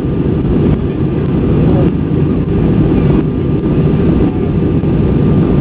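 Airbus A320 passenger-cabin noise in flight, heard beside the wing: a steady, deep rushing drone of the engines and the airflow over the fuselage, with a faint steady hum.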